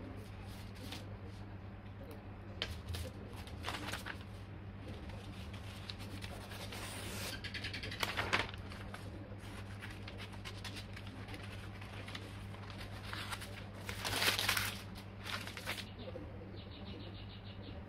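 Fabric being handled and rustled in short, irregular swishes, the loudest about 8 and 14 seconds in, over a steady low electrical hum.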